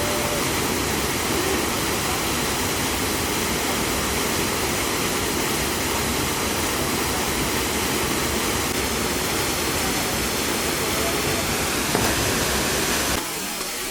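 Waterfall's steady, even roar of falling water, which cuts off abruptly near the end.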